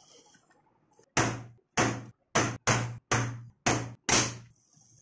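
Hammer striking a center punch on a steel plate to mark hole positions: seven sharp metal blows over about three seconds, each ringing briefly.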